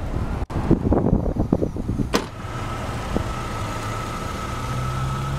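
1992 Chevrolet Cavalier's 2.2-litre four-cylinder engine idling steadily with a thin high whine over it. A few knocks and a sharp click come in the first two seconds, before the idle settles.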